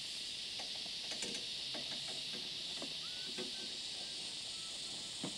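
A steady, high-pitched drone of insects fills the background without a break, with a few faint knocks and rustles of bags being packed into a vehicle.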